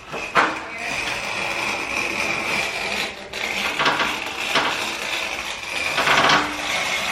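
Utility knife cutting through grasscloth wallpaper: a steady scraping in two long strokes, broken briefly about three seconds in, with several sharp clicks along the way.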